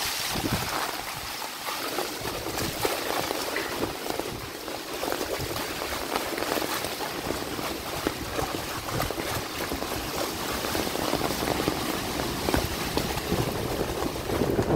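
Heavy rain falling and floodwater running: a steady hiss filled with many small ticks of drops.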